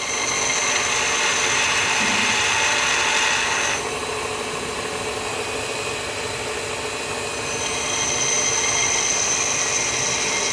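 Bench grinder grinding a high-speed steel (HSS) lathe tool bit: a steady grinding hiss with a high whine while the bit is held against the wheel for about four seconds, then only the running grinder, then the bit is pressed on again from about seven seconds in.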